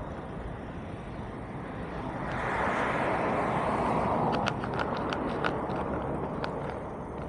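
Steady vehicle rumble that swells to its loudest about three seconds in and then fades, followed by a scatter of short sharp clicks.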